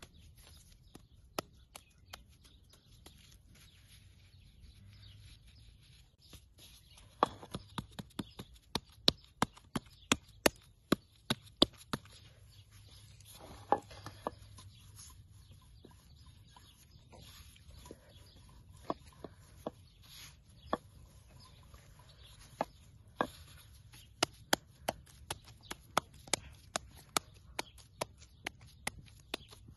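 Wooden rolling pin rolling out bread dough on a floured wooden board, giving many sharp wooden clicks and knocks in irregular runs with short pauses.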